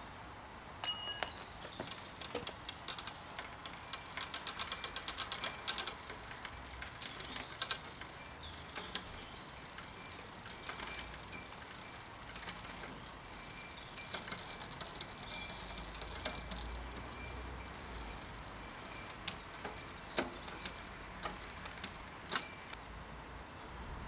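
Bicycle drivetrain turned on a workstand while the Shimano Deore XT rear derailleur is being adjusted: the chain runs over the cassette and through the derailleur, with spells of rapid metallic ticking and single sharp clicks. A ringing metallic ping comes about a second in.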